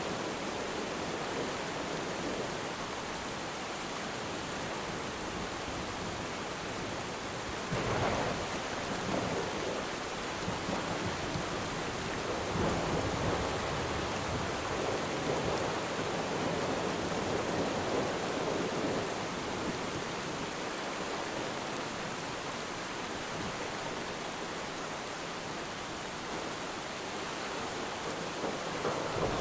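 Steady rain falling on water, with distant thunder rumbling: a short roll about a quarter of the way in and a longer one through the middle.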